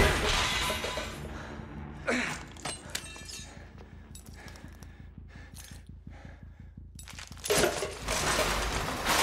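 Film fight sound effects: the tail of a crash fading out, then small pieces of glass and debris clinking and rattling as they settle, over a low hum. A louder rush of sound swells up near the end.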